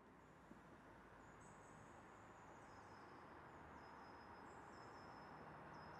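Faint outdoor ambience fading in, with high-pitched, steady insect trills starting about a second in.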